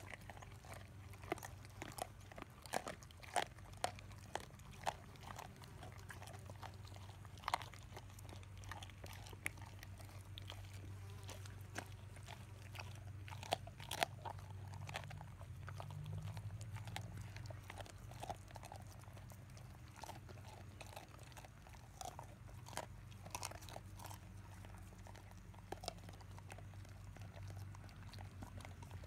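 Boxer-mix dogs chewing raw salmon heads: irregular wet crunching with sharp cracks of fish bone and cartilage.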